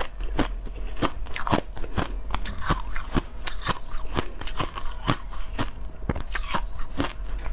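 Crushed ice being bitten and chewed close to the microphone: a quick run of sharp, crackling crunches, about two to three a second.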